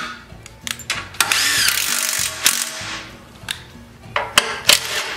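DeWalt cordless impact driver running a bolt out in one burst of about two seconds, with a whine through it, followed by a few sharp clicks and knocks of metal near the end.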